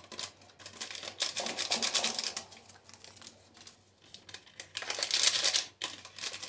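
Small vanilla sachets crinkling as they are squeezed and shaken out over a mixing bowl, in two bouts of crackly rustling.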